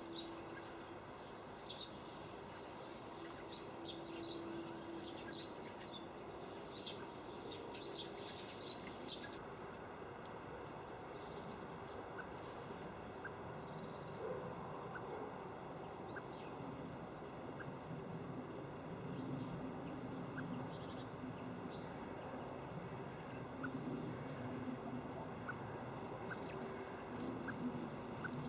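Faint outdoor ambience with small birds calling: quick high chirps and ticks, many in the first nine seconds, then a few scattered notes, over a low steady background hum.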